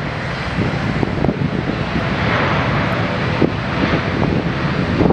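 Boeing 787-8's twin turbofan engines at takeoff thrust during the takeoff roll: a steady jet roar with a rough low rumble, growing slowly louder.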